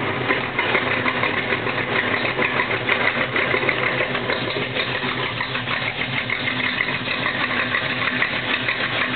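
Crate 350 small-block V8 with a street cam, idling steadily through dual Dynomax exhausts, with a fast, even pulsing exhaust beat.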